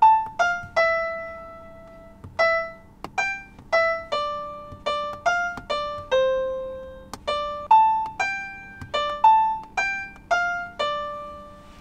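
Piano-sound keyboard of the Tesla Model 3's touchscreen TRAX music app, played through the car's speakers: a slow melody of single notes, about two a second, each struck and left to fade.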